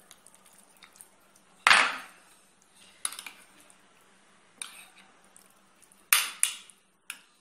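A ceramic baking dish set down on a table with a knock, then a metal spoon clinking and scraping against the dish a few times, with two sharper clinks in quick succession near the end.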